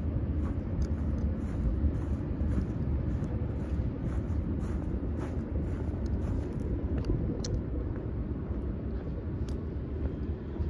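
Steady low rumble of road traffic on a city street at night, with scattered faint ticks over it.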